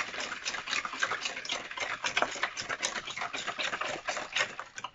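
Wire whisk beating a runny egg-and-milk custard mix in a plastic bowl: a quick, continuous run of clicking strokes against the bowl, stopping near the end.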